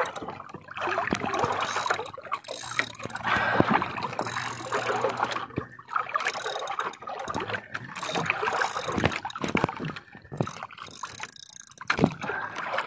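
Water lapping and splashing against the hull of a small paddle-powered outrigger canoe, with irregular small knocks and clicks.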